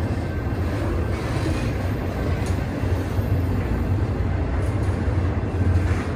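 Union Pacific double-stack container train's well cars rolling past close by: steel wheels on the rails make a steady low rumble.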